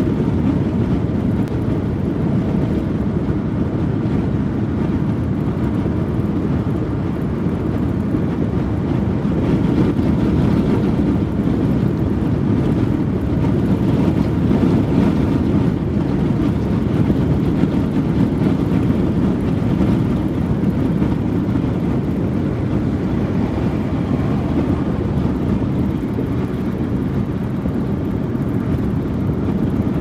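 Steady road noise of a car cruising at freeway speed, heard from inside the cabin: a low, even rumble of tyres and wind that hardly changes.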